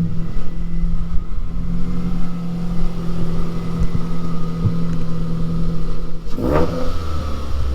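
2009 Mazda3's 2.3-litre four-cylinder engine, breathing through a racing header and straight-piped exhaust, running loud and steady at low revs, with one quick blip of the throttle about six and a half seconds in.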